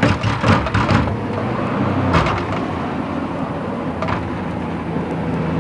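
Steady street traffic noise with a low engine hum, and a cluster of sharp knocks and bangs in the first second and two single knocks later.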